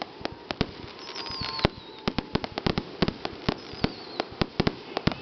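Aerial fireworks display: a rapid, irregular string of bangs and crackles from bursting shells. High falling whistles come twice, about a second in and again near four seconds.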